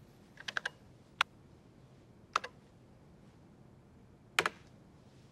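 Keys pressed on an old computer keyboard, in sharp separate clicks: a quick run of three, then single presses a second or so apart, and a last double click near the end as the Enter key is pressed.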